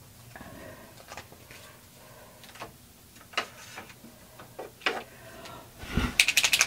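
Posca paint pens being handled and swapped: scattered light clicks of plastic pen caps and barrels, ending in a quick burst of sharp clicks with a dull knock about six seconds in.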